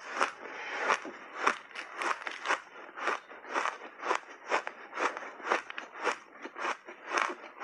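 Refrozen blended shaved ice being chewed: a steady run of crisp crunches, about two a second.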